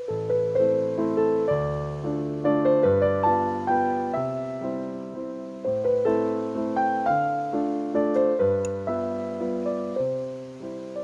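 Background music: solo piano playing a gentle melody over low chords, note after note with crisp attacks.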